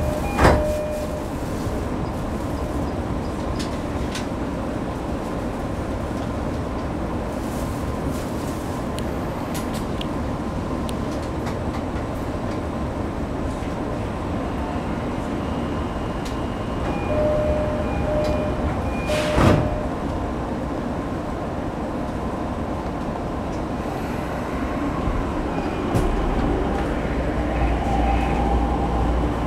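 Sotetsu 10000 series electric train with a Mitsubishi IGBT-VVVF inverter, heard from inside the car while running between stations: a steady rumble of wheels on rail. Two sharp whooshes break through, one about half a second in and one about 19 seconds in, each just after a short run of pulsing tones. The low rumble grows heavier in the last few seconds.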